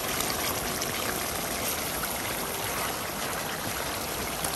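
Rohu fish heads frying in hot oil and spice paste in a steel pan, a steady sizzle with small crackles.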